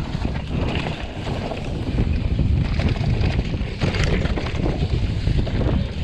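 Wind buffeting the microphone of a chest-mounted camera while a Specialized Levo electric mountain bike rolls fast down dirt singletrack. Steady rushing noise is mixed with tyre rumble over dirt and leaves and frequent small knocks and rattles from the bike over bumps.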